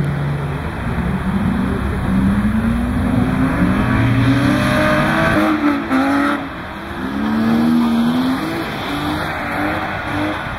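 BMW E36 325i straight-six engines revving up and down as the cars are held in drifts on wet tarmac, the engine pitch rising and falling again and again over a steady hiss.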